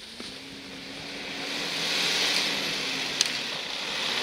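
Nissan Safari Y61's engine working under load as the 4x4 climbs a steep dirt slope, its steady note growing louder toward the middle. A sharp click comes about three seconds in.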